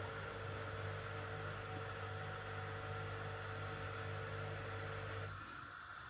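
Eggplant omelette frying in oil in a non-stick pan over a gas flame: a soft, steady sizzle with a low steady hum that stops about five seconds in.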